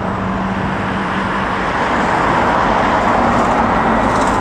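Jet engines of an Airbus A320 airliner on final approach, a steady distant roar that grows slightly stronger about halfway through.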